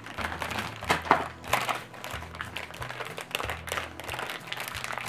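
Crinkly plastic-foil blind-bag packets crackling as they are handled and torn open by hand, in irregular bursts.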